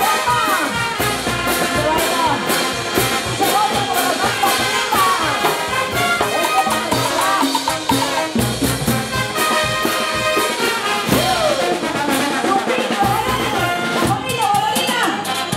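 Brass band playing a lively Latin dance tune: trumpets and trombones over steady percussion.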